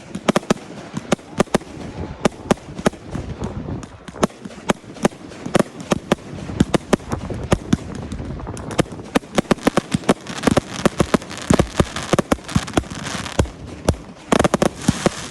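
Fireworks display: a steady run of sharp bangs that thickens into dense, rapid crackling about halfway through, with the heaviest volleys of bangs near the end.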